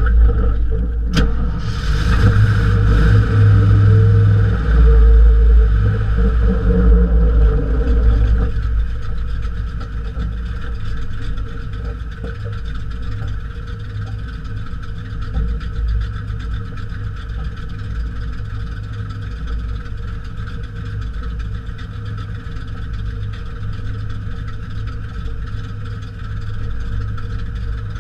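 Jeep CJ-5's engine and running gear heard from beneath the vehicle: a louder driving rumble with a sharp click about a second in, settling about eight seconds in to a steady idle as the Jeep stands still.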